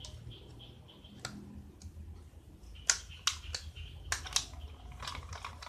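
Sharp clicks and crinkling from fingers handling a cut soft-drink can and the parts fitted into it, in a scattered series; the loudest click comes about three seconds in, with denser crinkling near the end.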